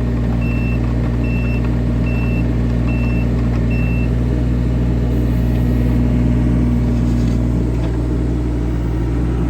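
Isuzu diesel engine of a John Deere 17ZTS mini excavator running steadily, with its travel alarm giving short, even beeps about once every 0.7 seconds that stop about four seconds in.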